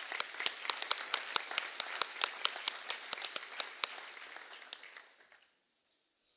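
Audience applauding, with one set of sharp, close claps at about four a second standing out from the crowd; the applause dies away about five seconds in.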